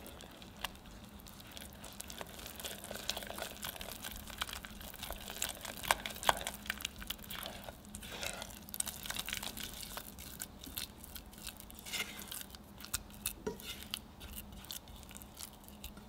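A spatula stirring flour into hot butter, water and milk in a saucepan. It scrapes the pan with many small clicks and crackles, with a few sharper ticks, as the mixture thickens into choux dough.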